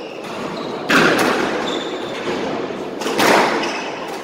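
Squash rally: two sharp hits of the ball by racket and wall, about two seconds apart, each echoing around the court, with short squeaks of shoes on the wooden floor between them.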